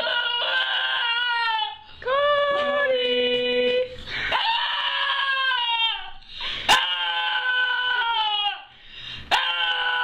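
Small long-haired white dog howling in a run of long, drawn-out wails, each a second or two long with short breaks, the pitch sagging at the end of each. A sharp click comes twice, just past the middle and near the end.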